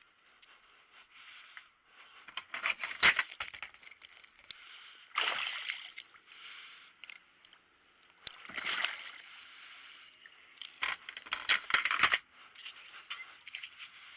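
Water splashing and sloshing in irregular bursts around a small boat.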